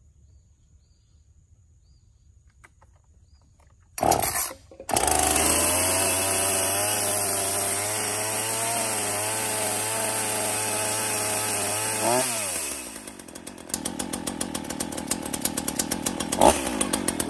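Gas-powered Ryobi chainsaw being cold-started: after a few quiet seconds it fires briefly about four seconds in, then catches and runs at a steady speed. Around twelve seconds the pitch jumps briefly and drops, and the engine settles into a quicker, evenly pulsing idle.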